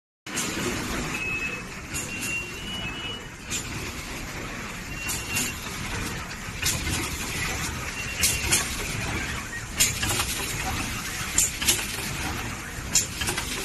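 Automated solar cell EL test and colour sorting machine running: a steady machine hum with frequent sharp clicks and clacks, and a few short high beeps.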